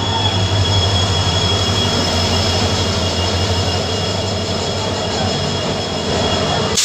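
Passenger coaches of the 11312 Hassan–Solapur SF Express rolling past close by. There is a steady rumble of wheels on the rails, a low hum, and a thin, steady, high wheel squeal.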